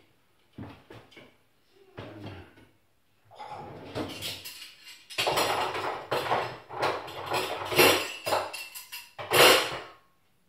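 Kitchen clatter: dishes and utensils being handled and set down on a worktop, a run of knocks and clinks that grows busier and louder about halfway through.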